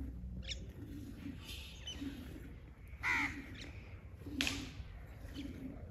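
Crows cawing: a few short calls, the loudest about three seconds in.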